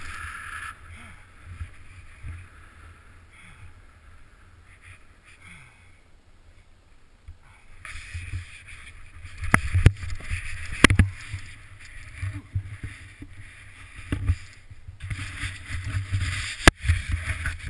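Snow hissing and swishing as a rider slides through deep powder, over low wind rumble on the microphone. The hiss fades for several seconds, then picks up again about halfway through with several sharp knocks.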